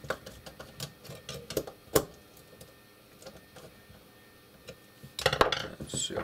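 Sharp clicks of a Siemens 3TB41 relay's contact plunger being pushed in and let go by hand, a few single clicks in the first two seconds, then a denser cluster of clicking and rattling about five seconds in.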